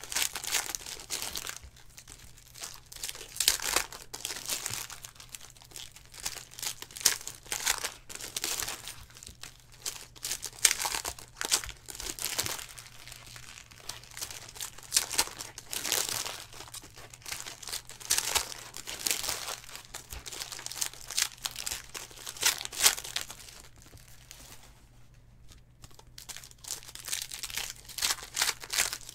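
Foil trading-card pack wrappers crinkling and tearing as packs are ripped open by hand, in irregular bursts with a short lull near the end. A faint steady low hum runs underneath.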